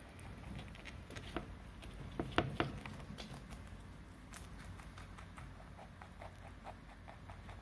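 Pet rabbits munching crisp cabbage leaves: soft crunching and leaf rustling, with a few sharper crunches about two seconds in.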